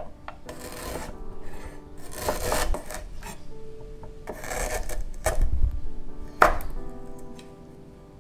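Chef's knife slicing through fresh ginger root on a wooden cutting board: about five slow, rasping cuts, with one sharper knock of the blade on the board about six and a half seconds in.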